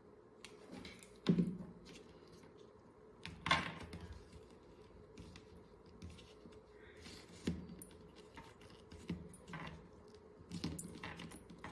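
Hands handling velvet-paper flowers on a hair-clip base: scattered soft taps and rustles a second or two apart, the two loudest about a second and three and a half seconds in.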